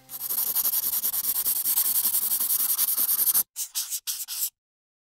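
Sound effect of a quill pen scratching on paper: a steady dry scratching for about three and a half seconds, then a few short strokes, cutting off abruptly.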